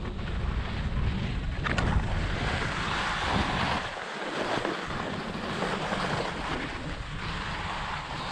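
Wind buffeting the microphone of a camera worn by a skier moving downhill, a low rumble that eases about halfway, under the steady hiss of skis scraping over packed, chopped-up snow. A short sharp click about two seconds in.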